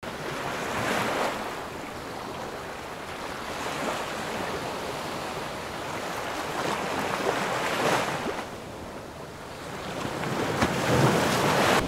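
Ocean surf: waves breaking and washing up the beach, swelling and easing, loudest about a second in, around eight seconds in, and near the end.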